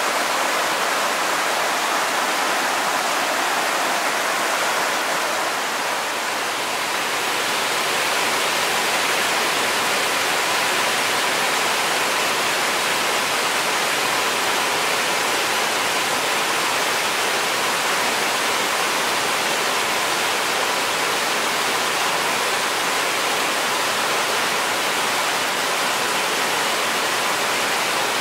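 Small waterfall and cascade rushing over rock into a pool: a steady, full hiss of falling and churning water.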